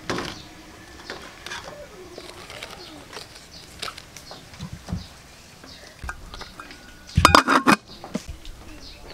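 Light handling clicks and rustles from the pot, then an aluminium pot lid clattering onto the pot with a brief metallic ring about seven seconds in.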